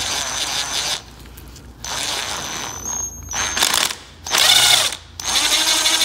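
Power drill with a 1/4-inch bit boring out a stripped bolt hole in an aluminium Yamaha R6 engine casing, to make room for a Heli-Coil thread insert. It runs in several short bursts with brief pauses between them, the loudest about four and a half seconds in.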